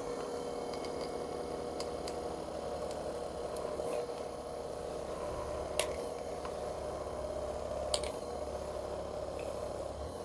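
Handheld electric massager running with a steady motor hum as it is worked over a person's upper back. Two sharp clicks come about two seconds apart in the second half.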